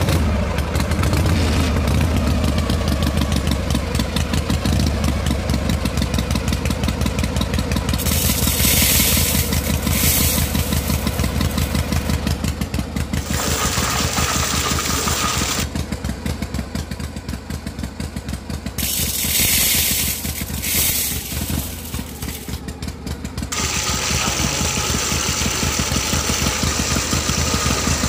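Small single-cylinder engine running steadily with a rapid, even thumping, driving the belt of a miniature juicer. Two bursts of hiss come over it, about eight and nineteen seconds in.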